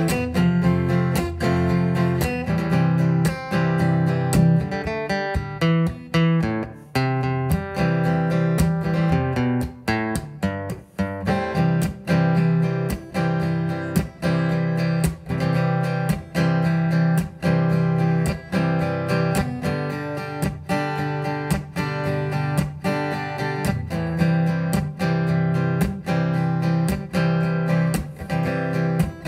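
Acoustic guitar strummed in a steady rhythm. A few seconds in, the strumming thins out into a passage of single moving notes for several seconds, then full, regular strumming returns.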